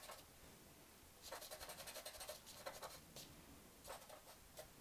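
Faint scratching of a charcoal stick drawn across drawing paper in short strokes, starting about a second in.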